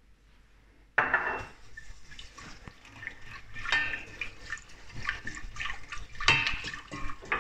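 Whisk stirring sugar into water in a stainless steel pot, with the liquid sloshing and the whisk clattering against the pot's sides to dissolve the brown and white sugar. It starts suddenly about a second in.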